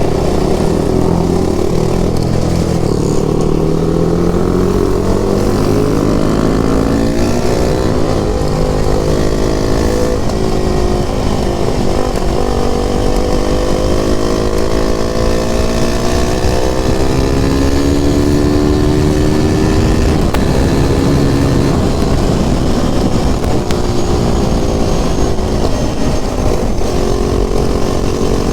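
KTM RC 390's single-cylinder engine running under way, its note climbing and dropping several times as the rider accelerates and shifts gears.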